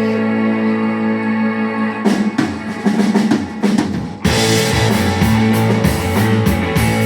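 Rock music: a held guitar chord, then a drum fill about two seconds in, and the full band with drums and guitar kicking in about four seconds in with a steady beat.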